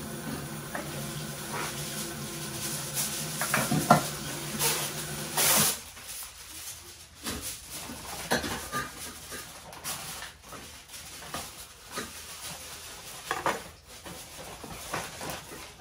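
Washing at a kitchen sink: a steady hum with splashing that stops suddenly about six seconds in, then scattered clinks and knocks of dishes and utensils.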